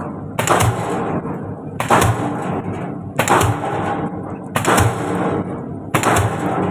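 DD-25 diesel pile hammer driving a concrete pile: five sharp blows evenly spaced about a second and a half apart, each ringing briefly after the strike.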